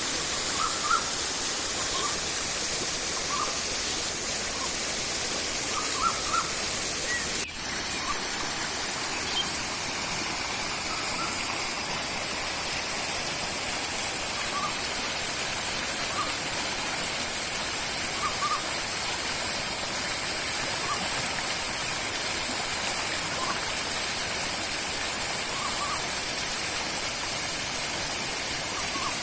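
Steady rushing of a river and waterfall with a high hiss over it, and short chirps every second or two. About seven and a half seconds in, the sound briefly drops out and the high hiss turns stronger.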